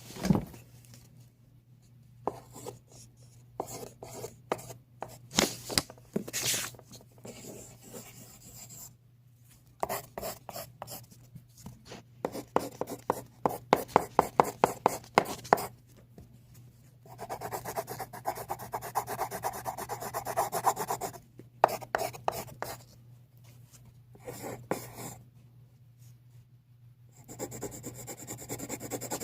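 Handwriting strokes scratching across a surface. Short strokes with pauses give way to a run of sharp, regular ticks in the middle, then longer stretches of continuous scribbling.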